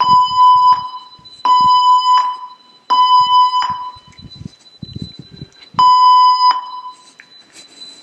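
A building evacuation alarm sounds loud electronic beeps in the temporal-three pattern: three beeps about three quarters of a second long, a pause of about two seconds, then a fourth beep starting the next round.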